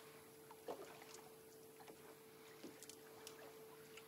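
Near silence: faint water lapping against the boat's hull, with a few soft ticks and a faint steady hum underneath.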